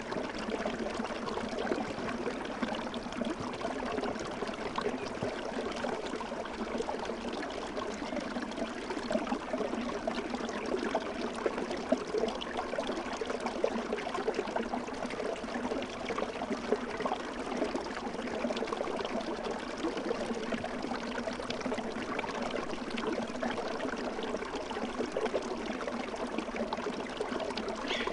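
Steady babbling and trickling of a flowing stream, an unbroken ambient water sound.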